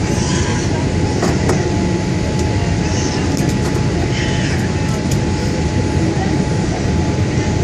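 Steady roar of cabin noise inside a Boeing 787 Dreamliner descending on approach: engine and airflow noise, with a thin steady tone above it and a few faint clicks.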